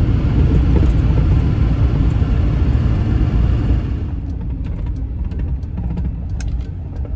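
Truck driving in heavy rain, heard from inside the cab: a low engine and road rumble under a steady hiss of rain and wet tyres. About four seconds in the hiss drops away, leaving the rumble and a few faint clicks.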